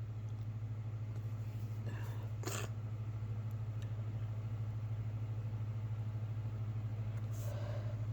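A steady low hum with a regular flutter runs underneath, and a man with a stuffy nose from a cold takes a few short, breathy sniffs, about two seconds in and again near the end.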